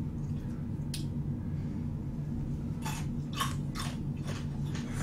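Chewing and biting of braised chicken, with a few short wet clicks and smacks clustered around three to four seconds in, over a steady low hum.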